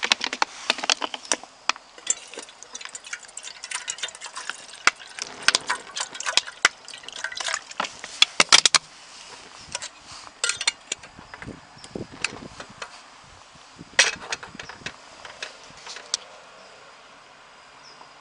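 Aluminium camping kettle being handled: irregular metallic clinks and knocks as its lid is taken off and put back and the kettle is set onto a portable gas stove, with a little splashing of water. The knocks come in quick clusters for the first half, then thin out, with one loud knock about two-thirds of the way through.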